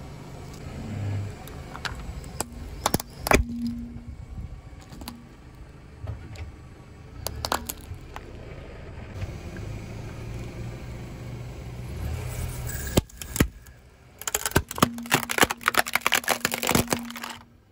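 A car tyre rolls slowly over small toys and crushes them, with a low engine rumble underneath. A few sharp cracks come as a zebra push-puppet toy breaks. Near the end a quick run of crackling snaps comes as a plastic toy water gun splits under the tyre.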